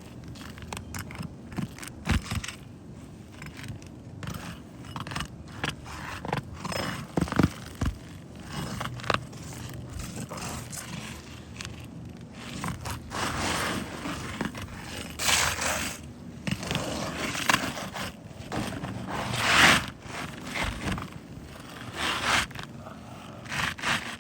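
Irregular scraping and knocking from roof repair work, the longer, louder scrapes coming about 13 to 20 seconds in.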